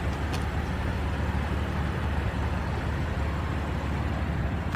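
Steady low vehicle rumble with an even hiss over it.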